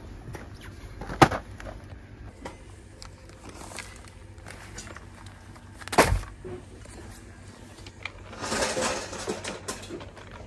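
Groceries being handled in a plastic shopping basket: a sharp knock about a second in and a louder one about six seconds in, then a stretch of rustling near the end.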